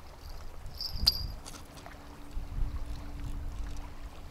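Wind buffeting the microphone on a riverbank. About a second in, a short high whizz ends in a sharp click as a spinning rod is cast, followed by a faint steady whir of the spinning reel being wound in.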